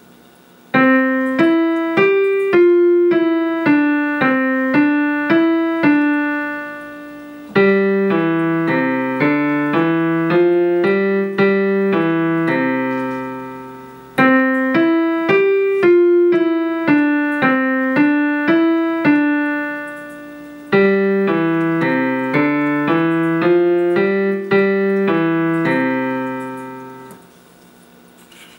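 Casio digital keyboard on a piano voice playing a simple beginner piano piece: four short phrases of evenly paced single notes, each ending on a held note that fades away, the second and fourth phrases lower in pitch.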